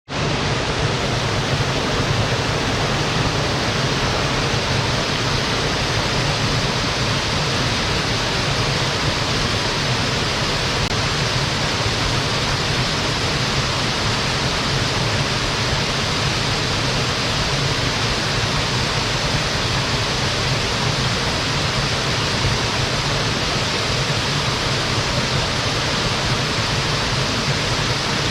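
Small mountain-stream waterfall pouring steadily: an even, unbroken rushing of falling water.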